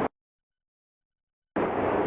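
Steady rushing roar that cuts off abruptly right at the start. There is about a second and a half of dead silence, then the roar comes back just as abruptly.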